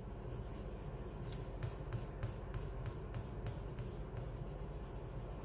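Dermatograph pencil rubbed rapidly back and forth on paper, wearing its waxy tip flat on one side to shape a sharp edge. A quick run of scratchy strokes, about four a second, starts about a second in and stops nearly four seconds in.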